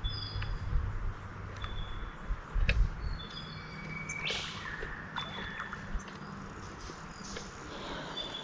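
Short high bird chirps repeating over outdoor background hiss, with a few sharp clicks, a dull thump a little under three seconds in and a brief rush of noise a little over four seconds in.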